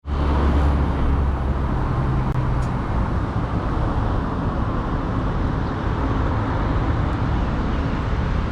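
BMW F20 1 Series car running on the road: steady engine and road rumble, with a deep low hum that is strongest for the first few seconds.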